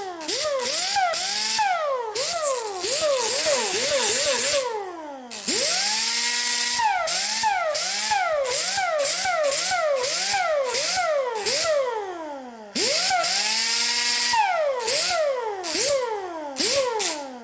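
Electric grinder grinding down the edges of a metal part. The motor spins up twice, and between spin-ups its pitch dips and recovers about twice a second as the work is pressed on and eased off, over a steady hiss of grinding.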